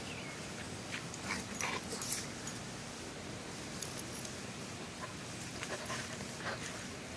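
Dogs making a few short yips or barks, a cluster about one to two seconds in and a few more later on.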